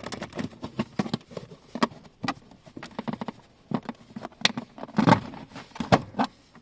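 Irregular clicks, taps and scrapes of a tool prying a push-pin fastener out of a truck's interior kick panel, with the loudest knocks about five and six seconds in.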